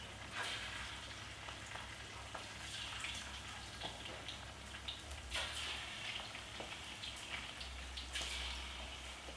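Marinated, cornflour-coated chicken pieces deep-frying in hot oil: a steady sizzle with frequent crackles and pops.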